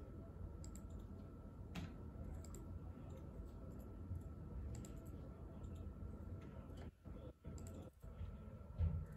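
Sparse faint clicks and taps over a steady low room hum and a faint high whine, with a soft low thump near the end.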